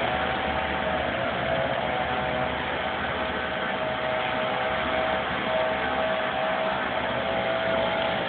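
Engines of work machines (wheel loaders and a turf-laying tractor) running steadily at a distance, with a faint steady whine over a constant hiss.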